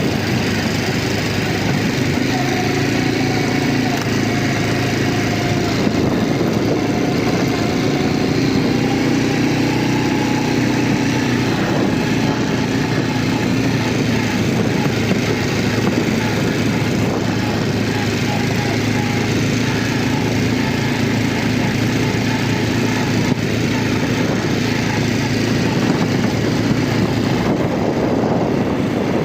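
Quad bike (ATV) engine running steadily while riding, its pitch holding fairly even throughout.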